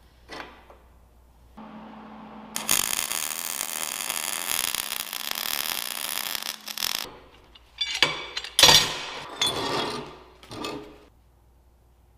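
Arc welding on a steel bracket: the welding arc runs steadily for about four seconds, starting a few seconds in. Then comes a series of short, sharp metal noises.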